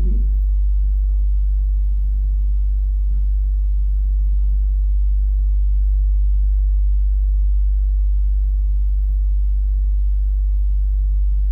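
Steady low electrical hum with fainter overtones above it, unchanging throughout.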